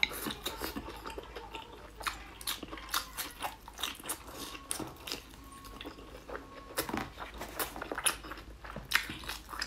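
A person chewing and biting braised pork intestine with the mouth close to the microphone: a steady run of many short smacking clicks, several a second.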